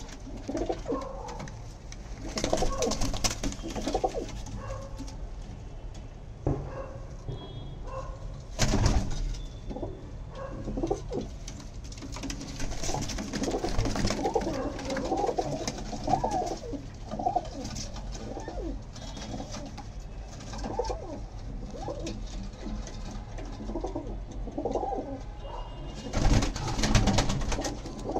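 Domestic pigeons cooing over and over, with a few loud bursts of wing flapping: a few seconds in, about nine seconds in, and again near the end.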